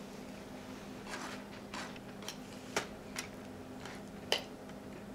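Eating sounds: chewing of liver and onions, with sharp clicks of a metal fork and knife against a foam takeout container. There are several short clicks, the loudest near the middle and about four seconds in.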